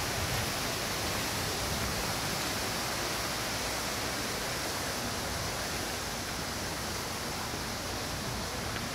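Steady rushing noise, even across low and high pitches, with no distinct events in it.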